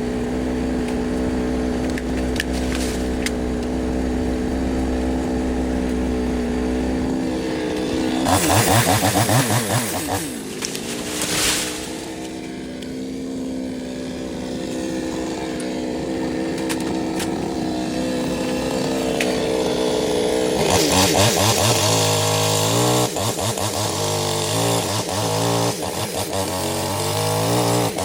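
Two-stroke chainsaw running steadily, then revved hard about eight seconds in. From about twenty seconds on it revs up and down again and again as it cuts through dead mango wood.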